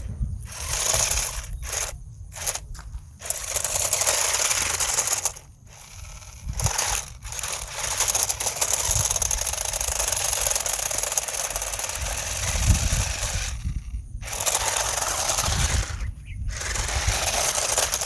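Toy radio-controlled car running in stop-start bursts, its small electric motor and gears buzzing whenever the throttle is applied, with short pauses between runs and a longer run of about six seconds in the middle.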